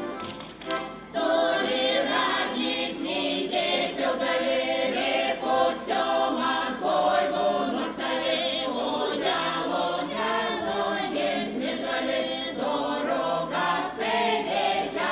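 A folk choir of mixed voices singing together in held, sustained notes, a Vepsian folk song; the singing swells about a second in.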